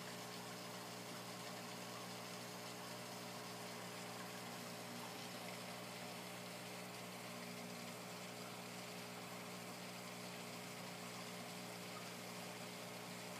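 Steady low hum made of several even tones, over a faint hiss.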